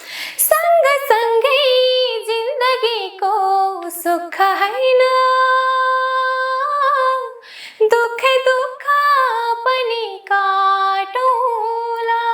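A woman singing a Nepali folk melody alone, without accompaniment, in long held notes with ornamented turns between them, pausing briefly for breath a few times.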